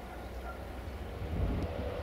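Wind rumbling on the microphone, with the low rumble of an approaching train growing louder about halfway through.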